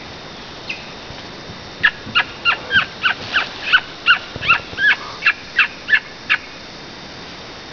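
Woolly monkey calling: a rapid series of about fourteen short, high yelps, roughly three a second, starting about two seconds in and stopping near the end.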